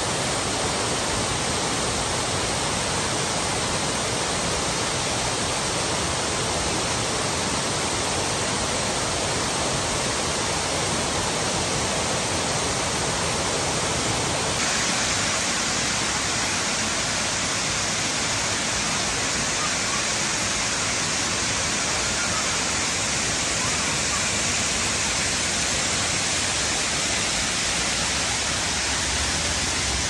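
Soco Falls, a waterfall, pouring over rock ledges in a steady, loud rush of water. About halfway through, the rush turns brighter and hissier.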